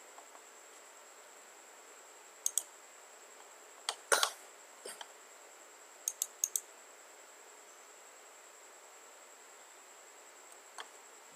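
Scattered sharp clicks of a computer mouse: one about two and a half seconds in, a louder pair around four seconds, three quick ones around six seconds, and a faint one near the end, over a faint steady high-pitched hiss.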